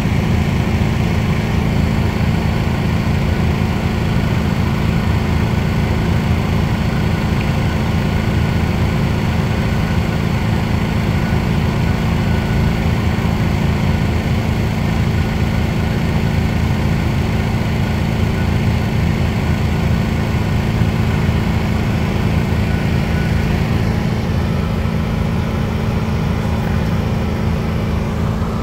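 Concrete mixer trucks' diesel engines running as the drums turn and discharge concrete down the chutes: a loud, constant low drone.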